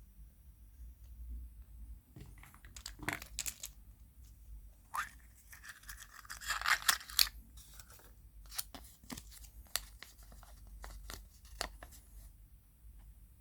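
A surprise egg's wrapper being torn open and handled: scattered crackles and clicks, with a denser burst of tearing and crinkling about six to seven seconds in.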